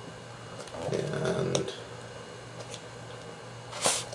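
Small cardboard software box being handled and turned over just after its plastic wrap came off: faint light ticks, then one sharper rustle or knock near the end. A brief low voice murmur about a second in, over a steady low hum.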